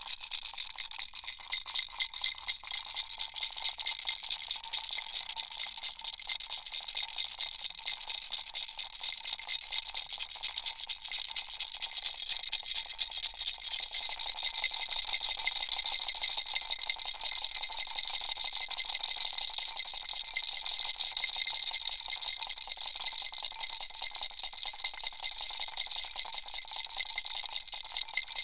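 Turtle-shaped baby rattle shaken steadily, a fast, even rattling at about three shakes a second.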